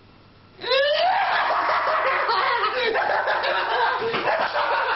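Loud laughter breaking out about half a second in with a rising cry, then carrying on without a break until just before the end.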